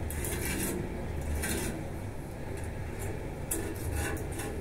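Short bouts of scraping and rubbing from hands working at a wrought-iron balcony railing, three brief bouts near the start, about a second and a half in, and near the end, over a steady low rumble.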